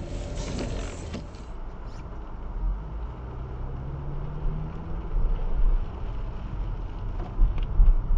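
Car engine and road rumble heard from inside the cabin through a dash camera, as the car pulls away and speeds up; the engine note rises a few seconds in.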